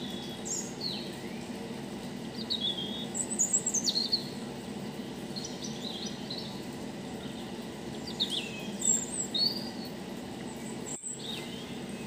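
Small birds chirping and twittering in scattered clusters of short sweeping notes, over a steady low hum.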